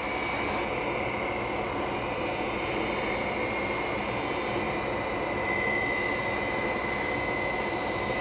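Wood lathe running steadily while a turning tool trims the tailstock end of the spinning spatula blank: an even whir with a thin high whine that grows louder about five seconds in.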